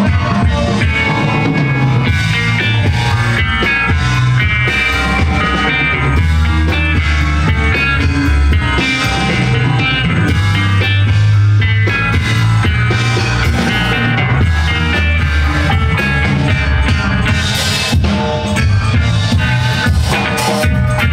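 Live rock band playing loudly through a stage PA: electric guitar, bass guitar and drum kit in a dub-funk style groove, with a strong steady bass line.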